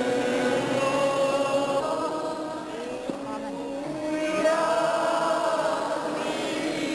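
Many voices singing a slow church hymn together, in long held notes that glide from one pitch to the next.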